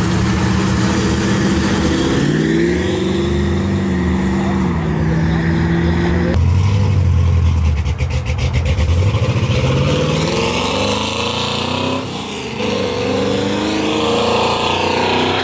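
Car engines accelerating hard. The pitch climbs, breaks and drops several times as the cars rev up through the gears, with a deep, loud stretch in the middle.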